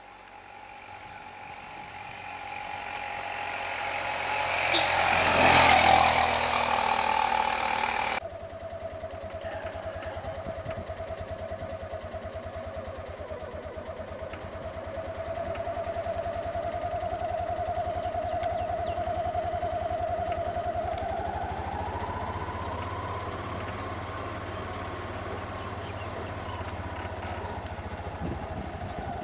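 A Tata truck's diesel engine grows louder as the truck approaches and passes close, peaking about six seconds in. After a sudden cut about eight seconds in, a motorcycle engine idles steadily, its pitch rising a little about two-thirds of the way through.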